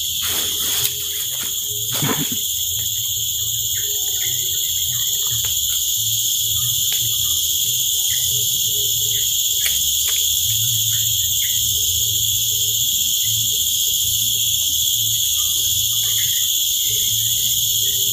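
A loud, unbroken insect chorus, shrill at several pitches at once, over a low, uneven rumble. A few light knocks and rustles come in the first two seconds.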